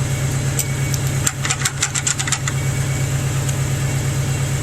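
An engine idling steadily, with a quick run of about eight sharp clicks a little over a second in, from the Farmall 140's key and starting circuit. The tractor does not crank: the owners suspect a bad key ignition switch that sticks in the start position.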